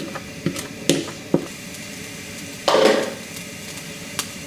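A metal spoon knocks about four times against a bowl and a non-stick frying pan as shredded venison is tipped and scraped into the hot, lightly oiled pan. About three seconds in comes a short, loud burst of sizzling and scraping.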